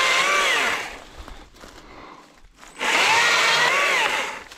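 Stihl MSA 120 C battery chainsaw cutting thin dead branches in two short runs. The electric motor's whine dips in pitch as the chain bites into the wood. The first run stops about half a second in, and the next starts about three seconds in, with no idling in between.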